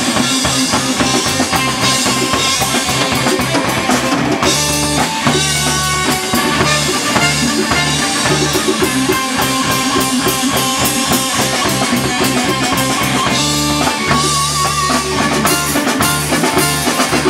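Live band playing an instrumental passage of a rock song: drum kit, electric bass and electric guitar, with trumpet and saxophone.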